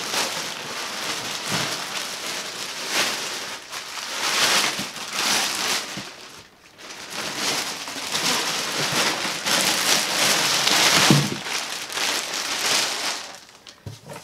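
Large clear plastic bag crinkling and rustling in repeated bursts as it is handled and pulled away, with a brief lull about six seconds in.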